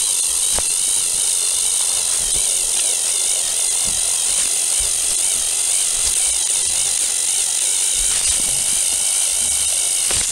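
Motorized toy train engines whirring and grinding as they push against each other on plastic track, played fast-forward so the motor noise becomes a steady high whine.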